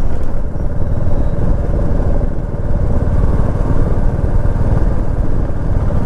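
Royal Enfield Meteor 350's single-cylinder engine running steadily while the motorcycle cruises at road speed, heard from the rider's position as a loud, even low rumble.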